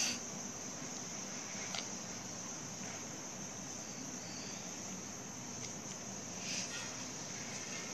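A steady high-pitched trill runs in the background throughout, with a few faint clicks and a brief rustle of handling about two-thirds of the way in.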